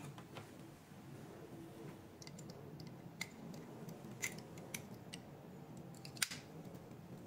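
Small plastic clicks as a microneedling tip cartridge is handled and fitted onto its handpiece: several separate sharp clicks, the sharpest a little after six seconds in.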